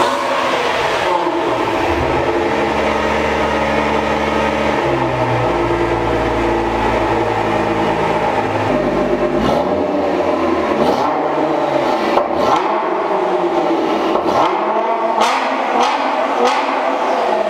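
Nissan GT-R R35's twin-turbo 3.8-litre V6 free-revving through an Armytrix valvetronic exhaust with the car standing still. The revs are held steady for several seconds, then blipped again and again, rising and falling, with sharp cracks between the blips.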